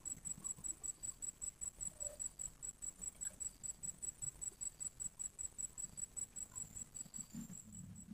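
Insect chirping: a high, rapidly pulsing call, about six pulses a second, that stops near the end.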